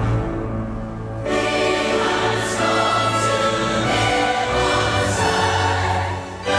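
Choir singing with instrumental accompaniment and a steady bass line; the music comes in suddenly and fills out about a second in.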